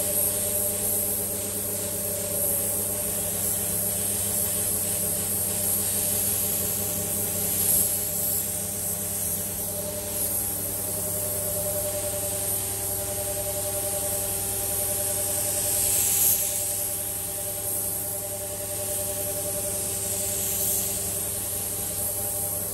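Paint spray gun hissing as it sprays blue colour coat, the hiss swelling and easing a few times as passes are made, over a steady machine hum.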